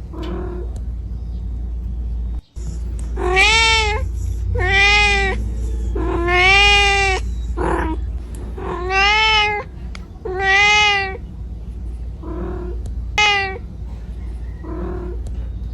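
Kitten meowing repeatedly, calling for its mother: about six loud, high-pitched meows, each about a second long, that rise and fall in pitch, with a few fainter meows between them.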